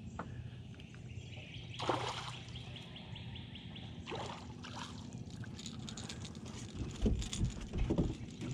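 Hooked bass splashing at the water's surface as it is reeled to the side of a boat, over a steady low hum. Near the end come a few dull thumps as the fish is swung aboard and handled on the deck.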